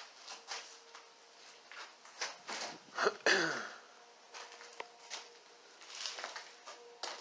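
Irregular footsteps and small knocks on a debris-strewn floor. About three seconds in comes a louder brief sound that falls in pitch.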